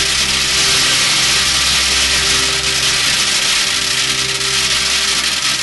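Metal BBs pouring onto a tin can in a continuous stream, the strikes so many and so fast that they merge into one steady, loud rattling hiss.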